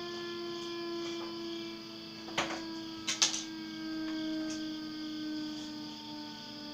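Klaxon CS8 siren winding down, its steady tone slowly falling in pitch. A few sharp clicks come about halfway through.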